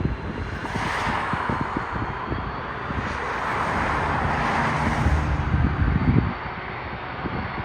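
Jet airliner engines, a steady roar that swells and then eases a little after about six seconds, with wind buffeting the microphone.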